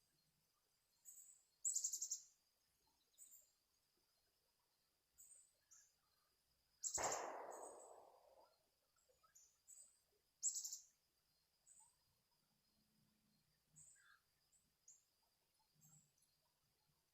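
Small birds chirping: short, high chirps every second or so. About seven seconds in, a louder sudden sound fades out over about a second and a half.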